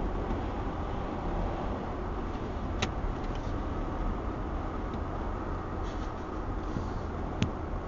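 Steady low road and engine rumble of a car driving at highway speed, with two sharp clicks, one about three seconds in and one near the end.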